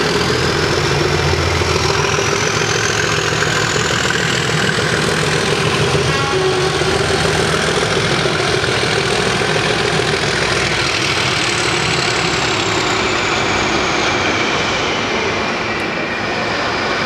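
English Electric Class 20 and Class 37 diesel locomotives pulling away under power, their engines running loud and steady. Over the engine sound a high turbocharger whistle climbs during the first few seconds, then falls away near the end.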